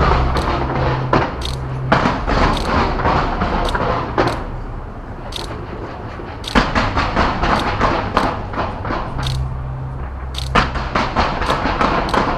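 Fireworks shells bursting in rapid succession: a dense run of bangs and crackles, easing off briefly in the middle and then picking up again.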